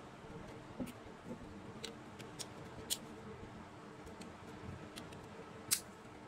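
Scattered small clicks and taps of a mobile phone and repair tools being handled, about five of them, the sharpest near the end, over a faint steady hum.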